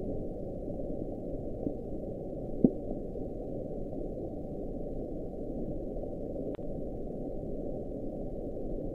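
Underwater hydrophone recording of the 1997 sound known as "Train": a steady low rumbling hiss with a brief rising sweep about two and a half seconds in. The sound has been linked to a huge block of ice touching the sea floor.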